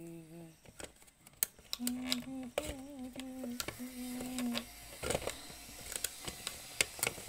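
Sharp plastic clicks and rattles from a white plastic part being handled, with a man humming a few level notes through the middle.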